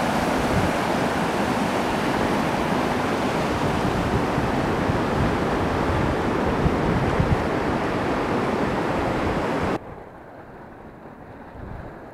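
Fast river rapids rushing steadily over rocks. About ten seconds in the sound drops suddenly to a quieter, duller rush.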